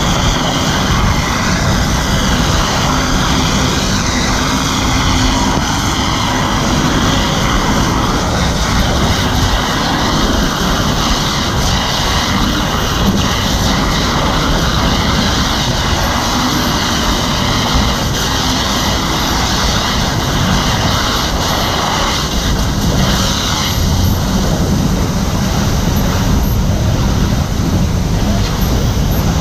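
Loud, steady roar of a burning propane tank's fire mixed with the rushing of a fire hose stream played onto it.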